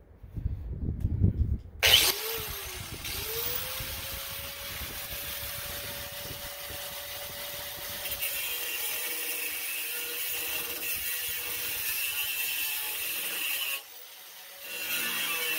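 Angle grinder with a cutoff wheel switched on about two seconds in, spinning up to a steady whine and cutting through the old metal chute bracket on a lawn mower deck, with a harsher, higher hiss as the wheel bites in from about eight seconds. Near the end the cut drops away for about a second and then picks up again. A low rumble of handling comes before the grinder starts.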